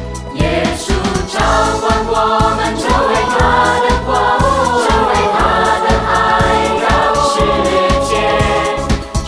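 Music: a song with sung vocals over a steady, driving drum beat.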